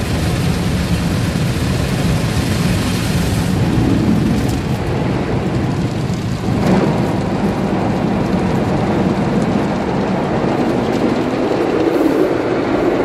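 Green rotating brushes of an automatic rollover car wash scrubbing over the car with water spray, heard from inside the cabin as a loud, steady rumbling wash of noise. The higher hiss of the spray thins out about three and a half seconds in.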